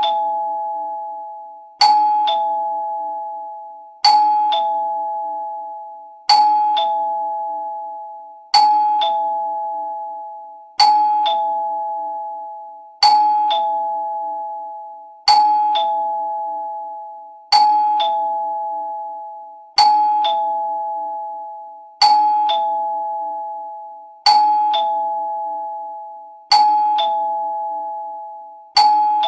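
Two-tone ding-dong doorbell chime rung over and over, about every two seconds. Each time a higher note is struck, then a lower note about half a second later, and both ring out and fade.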